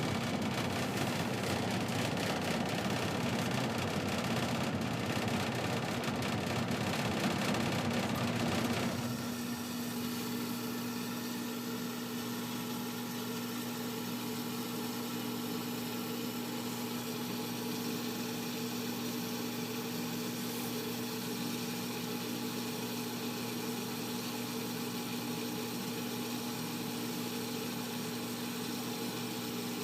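Furnace running: a loud rushing noise that drops off abruptly about nine seconds in, leaving a steady motor hum. With its thermostat wires jumped, the furnace is cycling its fan and burner on and off for a few seconds at a time instead of running steadily.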